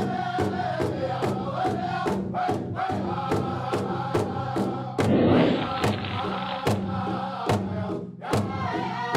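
Powwow-style drum beaten steadily, about two and a half beats a second, under a group of singers chanting. A louder swell of voices comes about five seconds in, and the drum briefly drops out near eight seconds.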